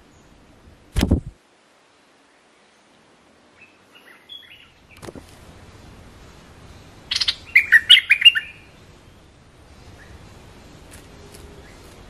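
A short, loud thump about a second in. Then stripe-throated bulbul calls: a few faint chirps, and about seven seconds in a loud run of quick notes lasting about a second and a half.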